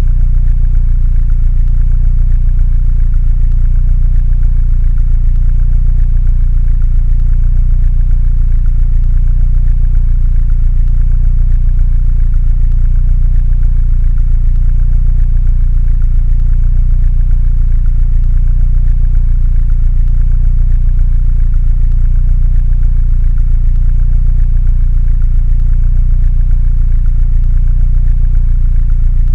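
Mini Cooper engine idling steadily, a low even hum.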